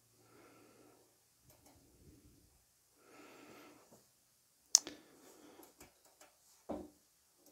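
Hand working the knobs and push-button bypass switches on a DIY Calrec PQ1549 clone equaliser: one sharp click a little past halfway, a duller click near the end, and a few small ticks and soft noises between.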